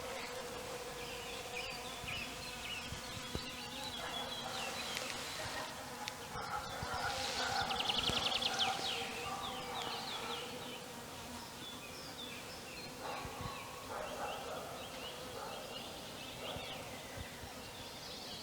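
Insects buzzing with a steady hum, while small birds chirp over it in short repeated high notes; a fast trill is loudest about eight seconds in.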